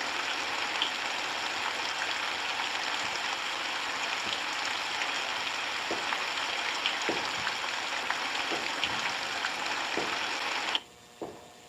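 Steady rainfall with scattered individual drops striking close by. Near the end the rain cuts off suddenly, leaving a faint hum and a single knock.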